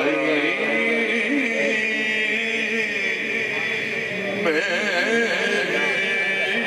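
A man singing a naat, an Urdu devotional poem in praise of the Prophet Muhammad, in long drawn-out notes that waver and bend in ornaments.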